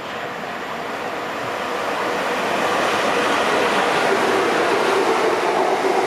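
Southeastern Networker electric multiple unit passing close by. Wheels run on the rails and a motor whine comes in about halfway through. The sound grows louder over the first couple of seconds and then holds steady.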